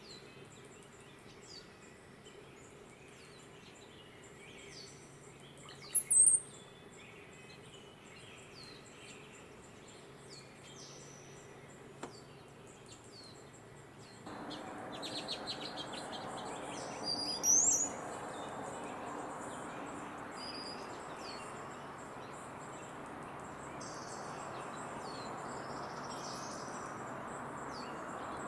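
Hummingbird singing a series of short, thin, high-pitched chirps and squeaks, with two louder, sharper bursts about six and seventeen seconds in. A steady background hiss grows louder about halfway through.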